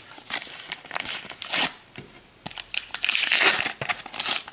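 A Panini sticker packet being torn open and its wrapper crinkled and crumpled in the hand. There are two stretches of crackling, the second longer.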